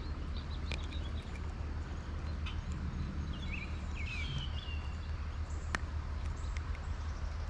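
Creekside ambience: a steady low rumble with a few short bird chirps around the middle and scattered sharp clicks, the loudest nearly six seconds in.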